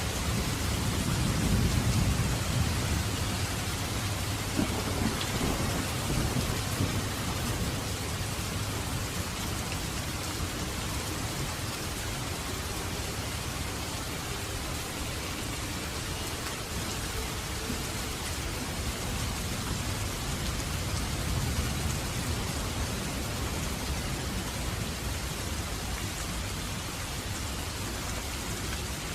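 Heavy rain falling steadily with a dense hiss of raindrops. A deeper, louder rumble swells through the first few seconds and then eases back.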